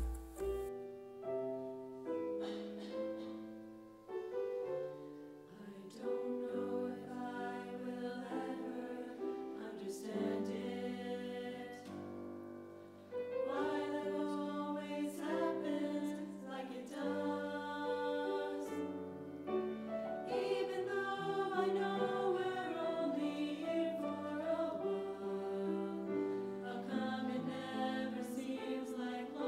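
A choir singing a hymn in held chords of several voices, starting abruptly and growing louder about 13 seconds in.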